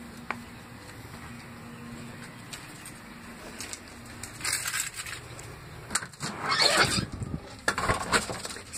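Front-door hardware being handled: the storm door's lever latch clicking and the door rattling as it is pulled open, then the inner door's knob and latch being worked, a run of sharp metal clicks and rattles in the second half. A faint steady hum sits under the first few seconds.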